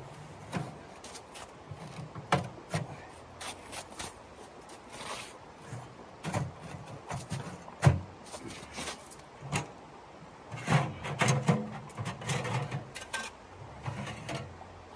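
Portable folding metal tent stove being unfolded and put together by hand: irregular clanks, knocks and rattles of metal parts. The loudest knock comes about halfway through, with a quick run of clatter a little later.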